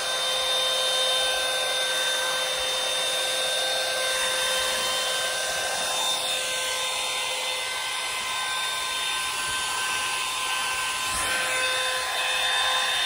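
Bed Head One-Step hot air brush (dryer-volumizer) running steadily on its cool setting: a constant rush of air with a steady motor whine.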